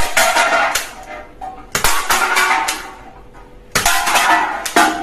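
Toy gun firing three rapid rattling bursts, each about a second long and roughly two seconds apart.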